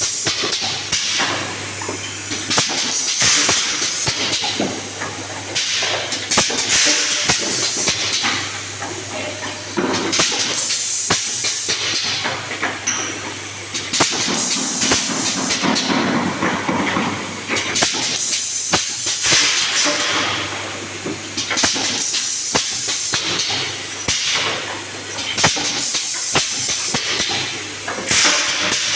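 Automatic confetti filling machine running through its cycles: hisses of air every few seconds, many sharp clacks and knocks of the moving parts, over a steady low hum.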